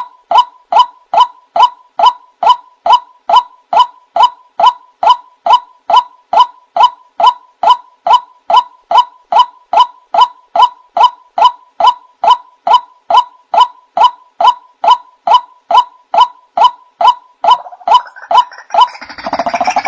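Male white-breasted waterhen calling: a steady, loud series of short identical notes, a little under three a second. Near the end, harsher, more jumbled calls join in over the series.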